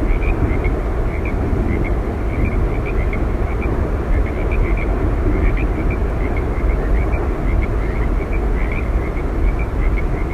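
Steady roar of Yosemite Falls, with faint short high chirps scattered through it.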